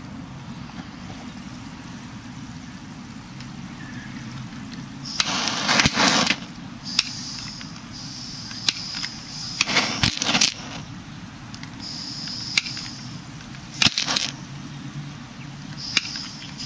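Hydrogen-oxygen (HHO) gas from an electrolysis cell, bubbling up through tap water, being lit with a handheld torch at the foamy surface. It goes off in short hissing spells and sharp pops and cracks, with loud cracks about six, ten and fourteen seconds in.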